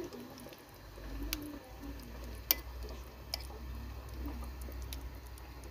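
Metal spoon spreading sauce in a glass baking dish, with a few sharp clicks of the spoon against the glass, the loudest about two and a half seconds in.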